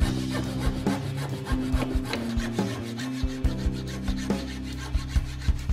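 Hacksaw sawing back and forth through a small wooden ring clamped in a bench vise, each stroke a short rasping scrape, with background music underneath.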